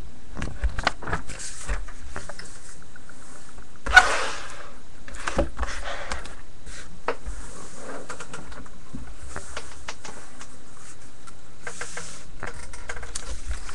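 Handling noises of a sealed trading-card box and the items being set on it: scattered rustling, scraping and light clicks, with one sharp knock about four seconds in.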